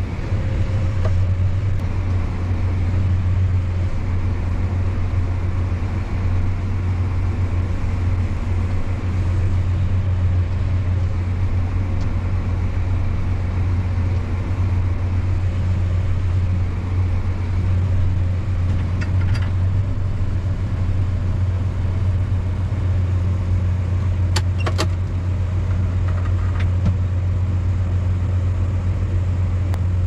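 Tractor engine running steadily under load, a constant low drone heard from inside the cab, with a few faint clicks after the middle.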